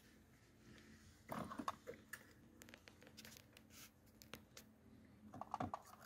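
Faint clicking and rattling of wiring harnesses and plastic plug connectors being handled, in two short clusters, one about a second in and one near the end.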